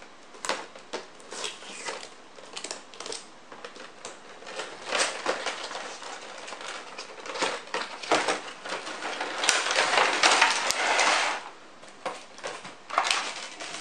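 A cardboard toy box being opened and its clear plastic blister tray slid out: scattered clicks and scrapes of cardboard, with a louder stretch of crinkling plastic about ten seconds in.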